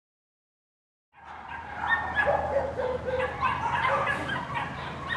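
Dogs in shelter kennels barking and yipping, several at once, starting about a second in, over a steady low hum.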